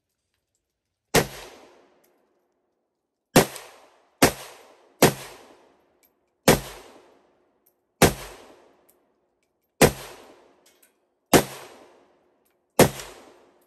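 A Chinese Type 56 SKS semi-automatic rifle firing 7.62x39 mm rounds. Nine shots come one at a time, unevenly spaced about one to two seconds apart, and each crack has a short echoing tail.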